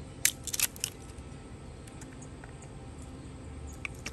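A few sharp clicks and taps close together in the first second, then only faint background, with one more small click near the end: a mop sauce bottle being handled and its cap taken off just before pouring.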